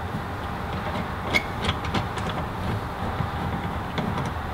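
Hand rivnut setting tool giving a few faint clicks and ticks as a threaded rivnut insert is threaded on and crimped into a van's sheet-metal roof rib. Underneath is a steady low rumble.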